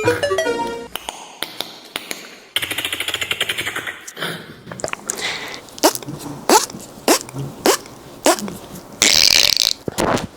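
A string of short beatbox-style mouth sound effects, one after another: clicks, a fast buzzing rattle, a run of quick rising swoops, and a hiss near the end.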